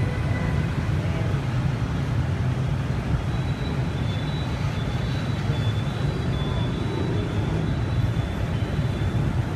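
Steady street traffic noise, mostly a low rumble.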